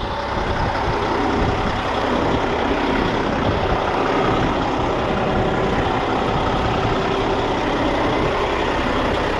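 Semi truck engine running steadily, a constant even noise with no breaks.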